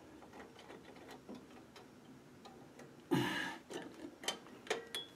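Small metal ticks and clicks of a drum-brake shoe hold-down nail, spring and keeper being worked into place by hand. A loud rustle comes about three seconds in, followed by a few sharper metallic clinks, one ringing briefly near the end.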